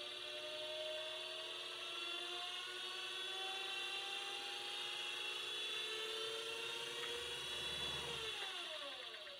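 Jet ML-1014 mini lathe driven by a treadmill permanent-magnet DC motor, running with a whine of several tones that climbs slowly in pitch as the speed knob is turned up. About eight seconds in the pitch drops steeply as the motor and spindle wind down.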